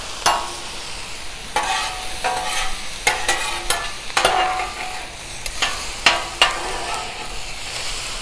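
Sliced vegetables sizzling on a 36-inch Blackstone griddle's steel flat top. Two metal spatulas scrape and clack against the steel as they toss the vegetables, a few sharp clicks a second, some ringing briefly.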